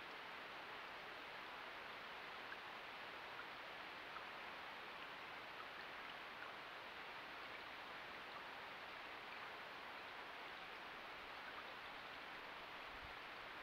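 Faint steady rush of a shallow river flowing over stones, with small ticks scattered through it.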